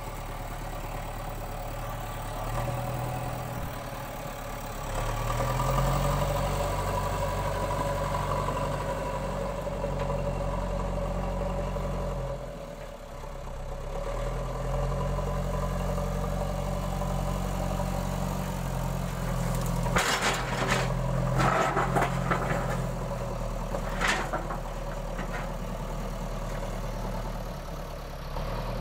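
JCB 3DX backhoe loader's diesel engine running and revving as the machine drives. The revs drop briefly about midway and then pick up again. A short run of sharp clanks and knocks comes about two-thirds of the way through.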